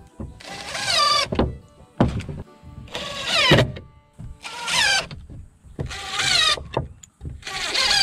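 DeWalt cordless drill driving exterior wood screws partway into a 2x4 in short trigger pulls: about five spin-ups, each a whine that rises in pitch and lasts under a second.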